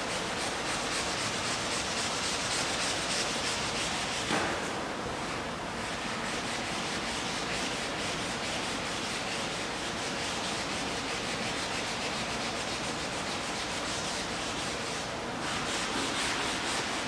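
Sandpaper being rubbed by hand over the surface of a painted canvas, a dry scraping in repeated back-and-forth strokes.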